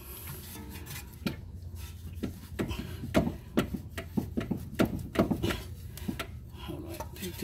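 Irregular knocks and scrapes of metal parts, two or three a second from about a second in, as a BMW E46 M3's steering knuckle is worked by hand to separate it from the tie rod end.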